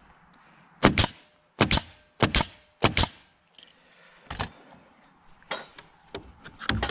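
Nail gun firing four nails into the rafter timber, one about every 0.7 s, each a sharp double bang. A few lighter clicks and knocks follow.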